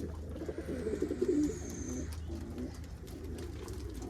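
Domestic pigeons cooing, several birds overlapping in low warbling calls, over a steady low hum.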